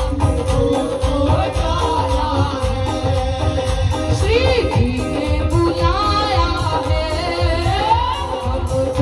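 Live Hindi devotional bhajan, amplified through a PA: a woman singing over a steady hand-drum beat and instrumental accompaniment.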